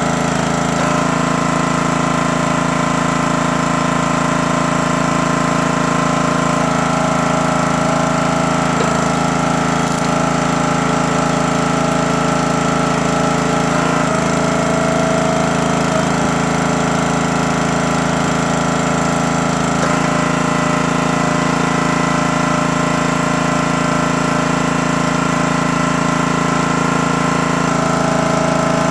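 Small gasoline engine of a CountyLine 28-ton log splitter running steadily, with slight shifts in its tone every few seconds as it works.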